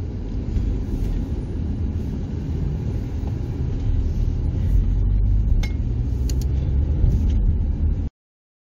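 Car driving on a village road, heard inside the cabin: a steady low rumble of engine and tyre noise. It cuts off suddenly near the end.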